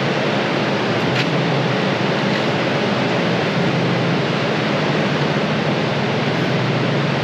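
Steady, loud rushing noise with a low hum underneath, even in level throughout, and a faint click about a second in.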